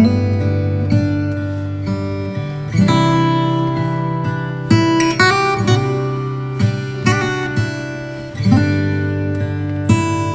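Instrumental background music: plucked chords that ring out and fade, a new chord every second or so.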